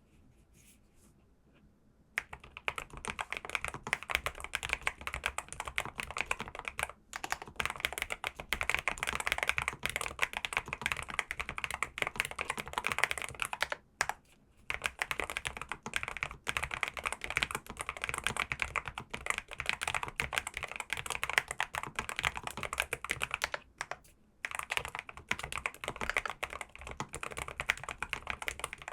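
Typing on a NuPhy Kick75 mechanical keyboard in its low-profile setup: fast, continuous key clicks that start about two seconds in, with a few short pauses.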